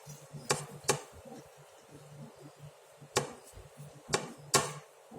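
A handful of sharp kitchen knocks at uneven intervals, from utensils striking a board or pan while food is prepared.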